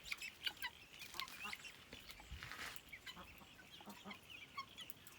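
Chickens clucking quietly, with many short, faint high calls scattered through, and a brief rustle a little past two seconds in.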